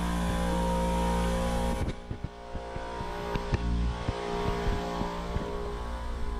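Electric air compressor running with a steady hum. About two seconds in it drops off sharply to a quieter hum, with scattered light knocks of footsteps.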